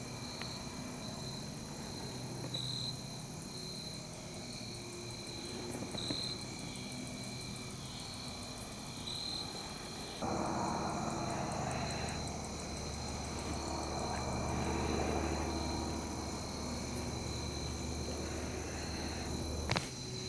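Evening insect chorus of crickets and katydids: steady high trilling with short chirps repeating every second or two. About halfway through, a low steady drone with a rushing noise joins in and cuts off with a click just before the end.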